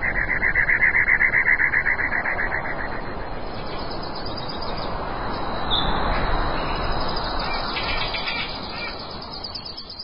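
Outdoor ambience: a steady rushing noise with birdsong, a rapid trill for the first two seconds or so, then fainter chirps.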